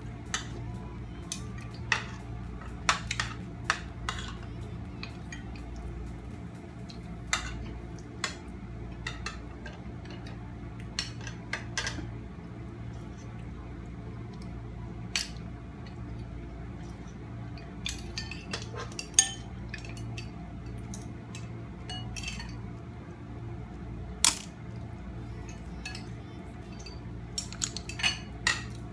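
Metal spoons clinking and scraping against ceramic bowls and plates during a meal: irregular sharp clinks, the loudest a little over two-thirds of the way through, over a steady low hum.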